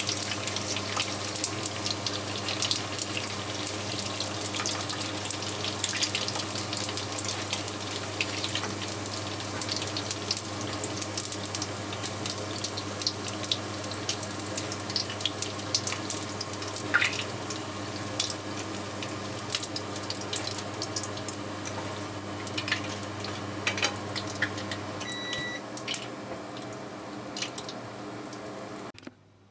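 Frozen gyoza deep-frying in hot oil: a steady sizzle with dense popping and crackling. A low hum runs underneath until near the end, and a short beep sounds about 25 seconds in.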